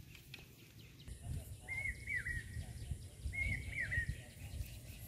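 A bird calling twice, about a second and a half apart, each call a short whistled phrase of a few notes ending in a downward slur, over a low outdoor rumble.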